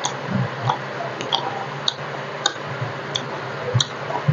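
Close-miked eating sounds: chewing roti and arbi (taro) curry with sharp mouth clicks about every half second and soft wet squishes, over a steady background hiss.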